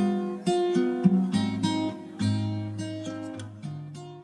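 Background music of acoustic guitar, plucked and strummed with a bass line. It fades and stops just at the end.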